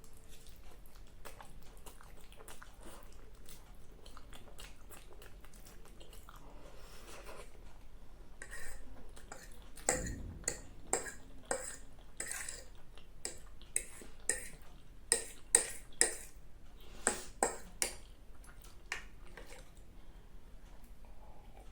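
Close-miked chewing of spicy black bean ramen noodles, faint at first, then a busy run of sharp, irregular wet clicks from about eight to nineteen seconds in, with one dull knock about ten seconds in.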